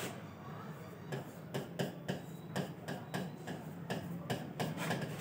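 Pen tip tapping and clicking on the glass of an interactive touchscreen board while numbers are written: a run of irregular sharp ticks, over a steady low hum.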